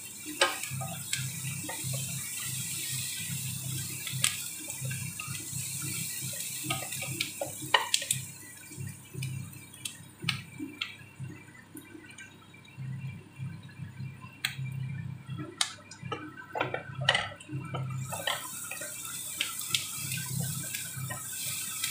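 Chopped onion and garlic sizzling in hot oil in a wok, with a wooden spatula scraping and tapping against the pan as they are stirred; the sizzle thins for a few seconds in the middle. A low hum runs underneath.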